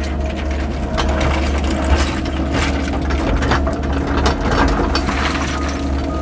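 Cat 308 mini excavator's diesel engine running steadily under load, with a quick irregular clatter of clicks and rattles over it.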